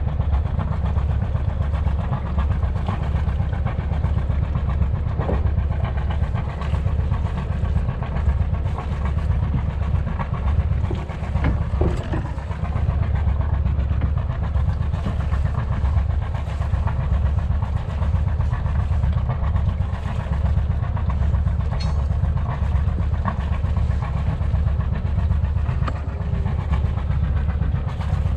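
A small sailboat's inboard diesel engine running steadily at low revs, a fast, even throb.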